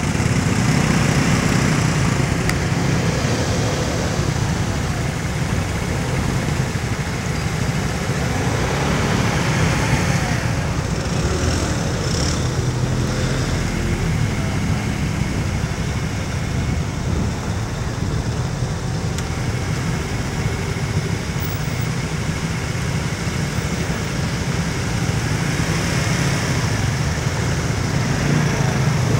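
Steady low rumble of distant road traffic, with a faint hiss over it.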